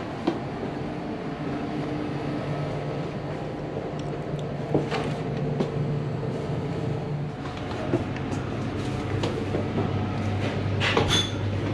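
Steady low hum inside a passenger train carriage, with a few light knocks along the way.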